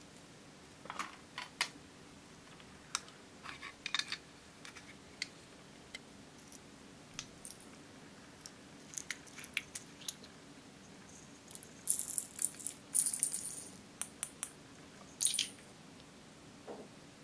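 Small plastic containers of pearl beads and glitter handled, giving scattered light clicks and taps. In the later part there are a couple of short bursts of loose beads rattling inside a container.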